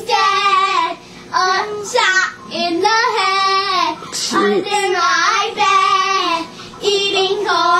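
Young girls singing loudly in high children's voices, in short phrases of about a second with brief breaks between them.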